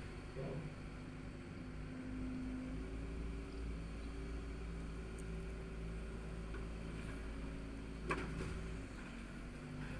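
Demolition excavator's diesel engine running steadily at work, with a low rumble underneath, and a single sharp bang about eight seconds in.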